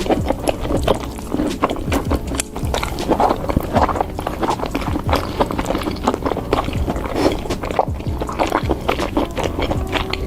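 Close-miked eating: irregular wet chewing and lip smacking of food dipped in cheese sauce, with music playing softly underneath.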